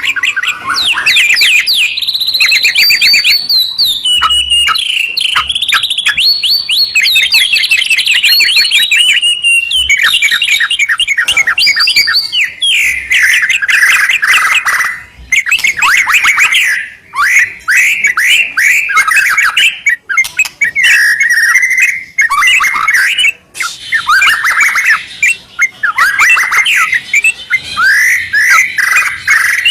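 A white-rumped shama and a yellow-vented bulbul singing loudly together: fast runs of quickly repeated notes and trills, almost without a break.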